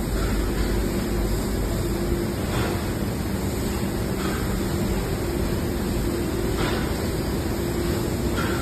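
Steady running noise of factory machinery on an automated packing line, a constant hum with a steady low tone and a few faint soft knocks.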